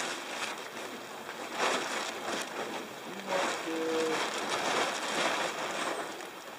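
Blue plastic tarp crinkling and rustling as it is shaken out and handled, in uneven swells.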